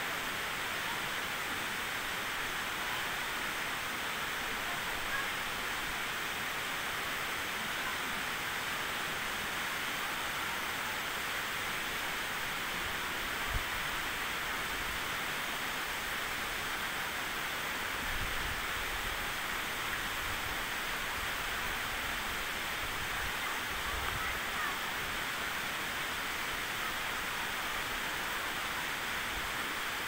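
Yoro Falls, a tall single-drop waterfall, pouring steadily: a constant, even rush of falling water.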